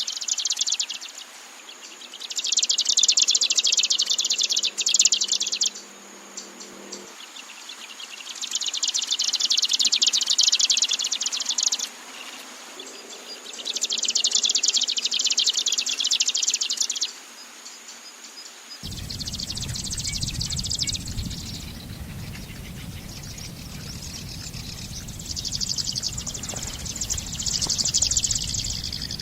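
Locustella (grasshopper) warbler reeling: long, insect-like, high-pitched trills of about three to four seconds each, separated by short pauses. About two-thirds of the way through, a different recording takes over, with a low background rumble under shorter, broken trills.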